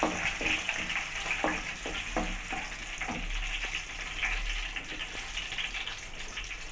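Whole spices and green chillies frying in hot oil in a kadai, a steady sizzle and crackle, with a few short clicks as they are stirred.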